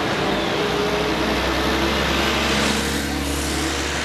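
City buses and road traffic driving past, engine hum steady underneath, swelling as a bus passes close about three seconds in.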